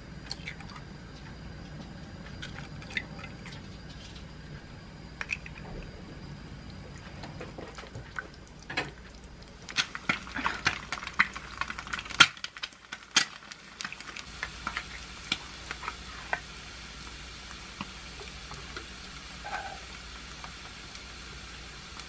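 A tuna can's peel-off metal lid being pulled open by hand, making a run of sharp metallic crackles and clicks about ten seconds in. Scattered light clicks and knocks of kitchen handling come before it, and a steady hiss follows.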